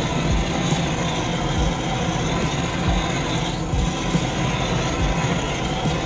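Gas blowtorch flame burning steadily, a rushing noise with a low fluttering rumble, as it heats and shrinks heat-shrink sleeves on a high-voltage cable termination.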